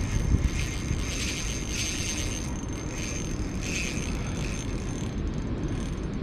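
Wind rumbling on the microphone, with the intermittent whir of a spinning reel being wound in.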